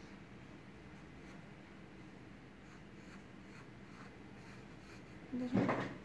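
Graphite pencil scratching faintly on sketchbook paper as light outline strokes are drawn. A brief, louder sound comes near the end.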